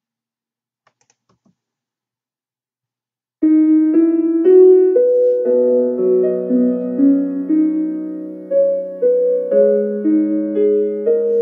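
Near silence, then about three and a half seconds in a slow piano piece begins, a melody of notes struck about twice a second over held lower notes.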